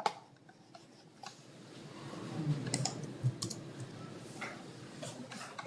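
Low classroom murmur of students talking with their neighbours, building from about a second in, with scattered clicks of typing on computer keyboards.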